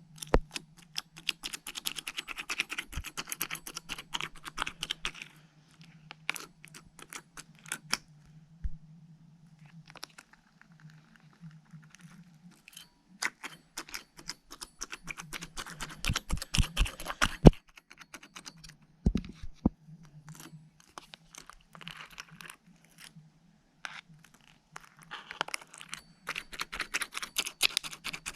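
Slime being worked by hand, making crackly clicks and pops that come in three dense bursts with scattered clicks between, over a steady low hum.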